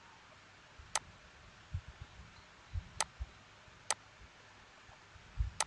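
Four sharp computer mouse clicks at uneven intervals, over faint room hiss with a few soft low thumps between them.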